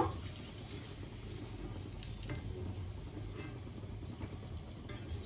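Potato-onion pakoras sizzling gently in hot oil in a kadhai on a low gas flame, with a few light clicks of a slotted spoon against the pan as they are lifted out.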